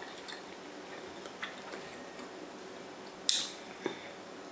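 Hands picking through seafood boil in a plastic food container: a few faint clicks, then one sharp click about three seconds in and a smaller one just after.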